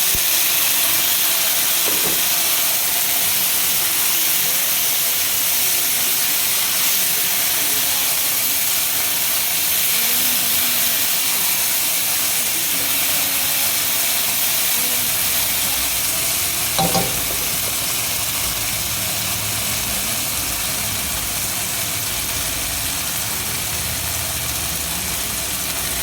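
Eggplant frying in olive oil in a pan: a steady sizzle, with a brief knock about two-thirds of the way through.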